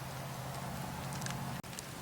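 Wood fire crackling in a fireplace: a steady hiss with scattered sharp pops, over a low steady hum. The sound drops out for an instant about three-quarters of the way through, and the hum does not come back after it.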